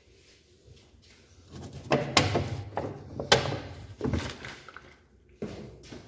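Knocks and thuds from an old refrigerator being handled: its door and inner compartment bumped and a plastic bottle pulled out, in a run of about five knocks, the sharpest a little over three seconds in.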